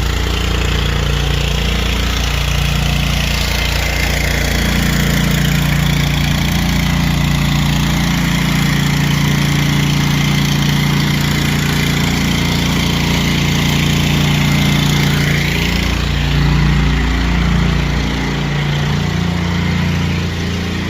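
Gas engine of a pressure washer running steadily under load, with the hiss of the water jet spraying the driveway.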